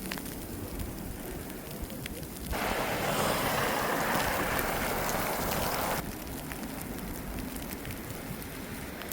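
Wind rumbling on the microphone in a snowstorm. About two and a half seconds in, a louder hiss comes in abruptly, lasts about three and a half seconds, then cuts off sharply.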